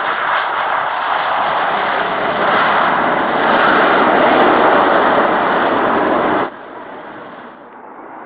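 Loud, steady aircraft engine noise that cuts off abruptly about six and a half seconds in, leaving a much quieter rush.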